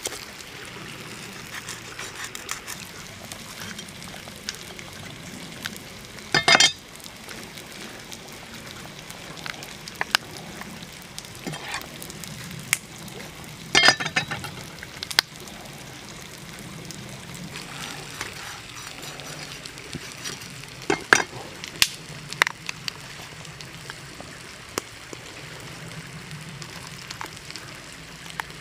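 Raw whole chicken being cut with a knife and pulled open by hand: scattered wet clicks and crackles over a steady hiss, with louder tearing crackles about a quarter, half and three-quarters of the way through.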